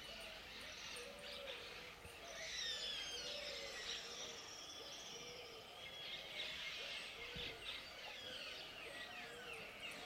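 Several birds singing at once: a dense chorus of quick, high, downward-sliding whistles overlapping throughout, with a lower short note repeated about once a second underneath.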